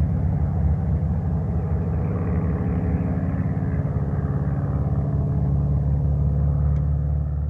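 Light single-engine propeller aircraft, likely a Cessna 140, flying overhead after takeoff: a steady engine and propeller drone with a low, even pulsing.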